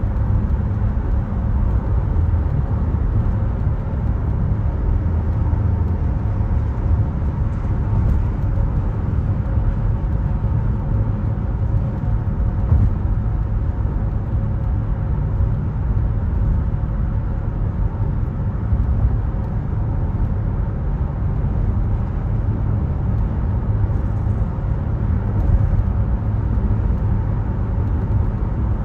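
Steady road noise of a car being driven: a constant low rumble of tyres and engine, with a faint steady hum above it.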